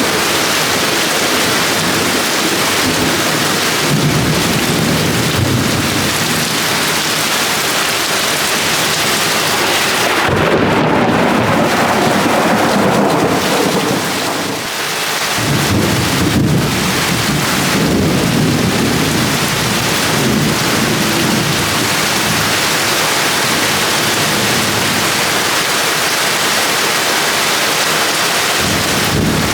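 Heavy rain pouring steadily during a thunderstorm, with thunder rumbling low in swells that rise and fade several times and a brief lull about halfway through.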